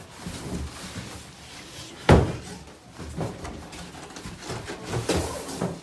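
Cardboard shipping boxes of a massage chair being handled and opened: one loud thump about two seconds in, with lighter knocks and rustling handling noise around it.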